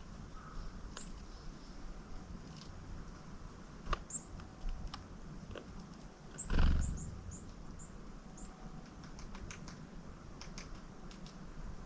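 Small wild songbirds giving short, very high, thin call notes, including a quick run of five or six calls just past halfway, among a scatter of sharp clicks and taps. A brief low rush, the loudest sound, comes just past halfway.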